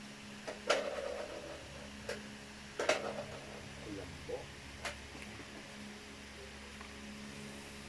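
Hard plastic toy pieces of a toy cash register and supermarket play set clicking and knocking as a small child handles them: about half a dozen sharp clicks, the loudest about a second in and about three seconds in. A steady low hum runs underneath.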